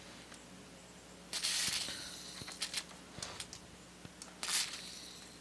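Aerosol spray can with a straw spraying light lubricant onto the stones of a cylinder hone set in a small-engine cylinder, wetting them so the bore isn't honed dry. There is a hiss about a second in and a shorter one near the end, with a few light metallic clicks in between.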